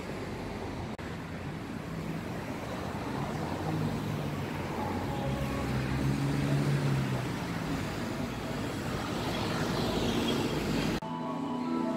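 City road traffic: a steady rush of passing cars and buses, with a low engine hum that swells in the middle as a larger vehicle goes by. It cuts off suddenly about a second before the end and music takes over.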